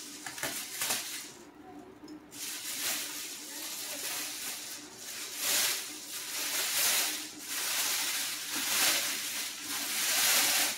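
Clear plastic bag rustling and crinkling in repeated swells as it is untied and pulled off a large boxed appliance.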